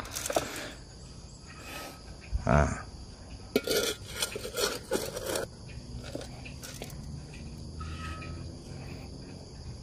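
Shovel working soil: a dull thud about two and a half seconds in, then a run of short scrapes and knocks over the next few seconds. Insects chirr steadily throughout.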